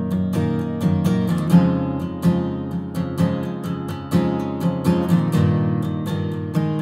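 Background music of strummed guitar, chords struck in a steady rhythm.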